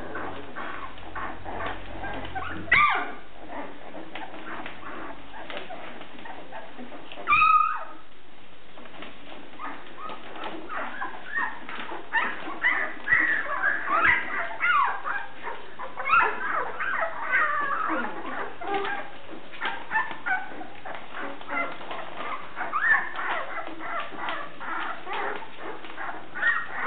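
A litter of young Briard puppies whimpering and squeaking, many short high cries overlapping, busier in the second half. There are two louder, sharper cries about three and seven seconds in.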